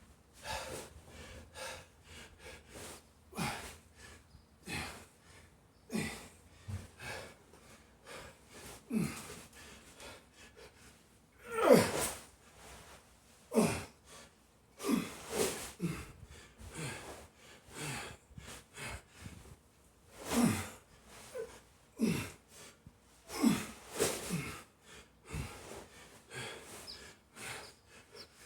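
A man breathing hard from heavy exertion: loud, gasping breaths every second or two, some with a short grunt that falls in pitch.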